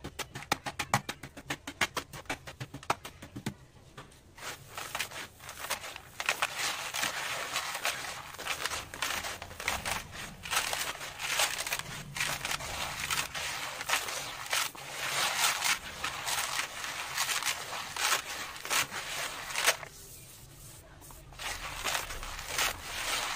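Hands crushing and crumbling dry, crunchy reddish dirt with small clumps: quick crackling crunches for the first few seconds, then a denser run of crunching and rustling grains, with a short quieter spell about twenty seconds in.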